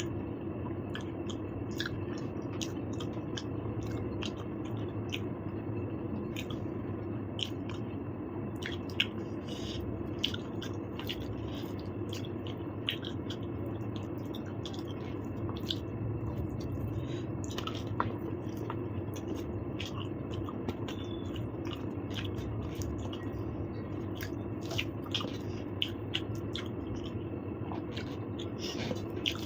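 Close-up eating sounds: chewing with many short, irregular wet clicks and smacks of the mouth, over a steady low hum.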